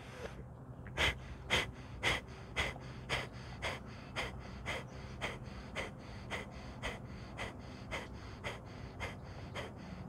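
Kapalbhati fire breath through one nostril: a man's short, forceful exhalations out through the right nostril with the left held closed, about two a second. The first few puffs are the loudest, the rest a little softer and very even.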